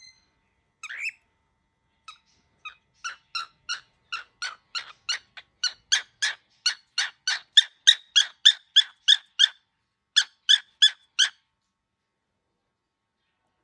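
Baby cockatiel giving a rapid run of short, harsh squawks, about three a second, growing louder; they break off and three more follow near the end. The bird is described as very angry.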